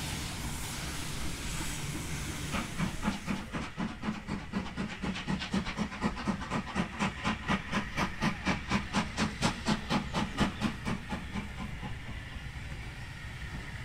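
Steam locomotive at work: its exhaust beats at about four a second build up a few seconds in, are loudest about two-thirds of the way through, then fade, over a steady hiss of steam.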